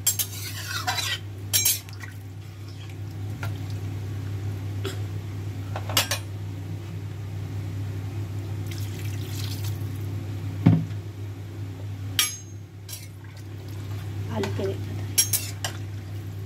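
A metal spatula stirring watery curry gravy in a metal cooking pan, with scattered clinks and scrapes against the pan, the loudest about two-thirds of the way in, over a steady low hum.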